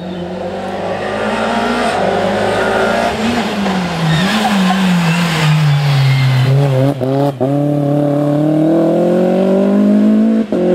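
Renault Twingo rally car's four-cylinder engine slowing for a bend, its pitch falling, then accelerating hard away. Two quick gear changes about seven seconds in, then the revs climb steadily, with another change near the end.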